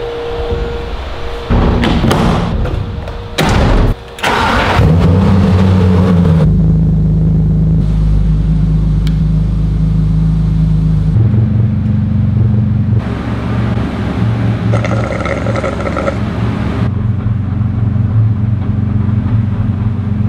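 BMW M3's straight-six engine starting and then idling steadily on the dyno. A few knocks and clatter come before it starts, about four to five seconds in.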